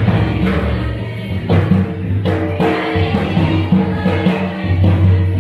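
A group of voices singing a folk song over drum strokes.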